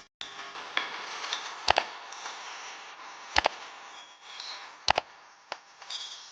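Sharp kitchen knocks, several of them in quick pairs, from a utensil striking a hard surface, over a faint steady hiss.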